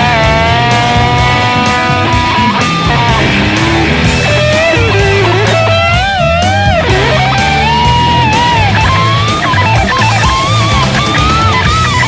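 Rock band music with electric guitar: a lead melody line slides and bends with vibrato over a steady bass line and regular cymbal ticks.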